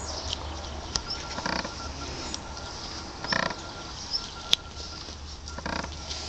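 Newfoundland puppy giving three short grunts while mouthing a plastic ball, with one sharp click about two-thirds of the way through.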